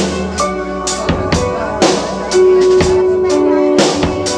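Live band music: a drum kit playing bass drum, snare and cymbal strikes under held melodic notes from violin and keyboards, with one long held note from about halfway until near the end.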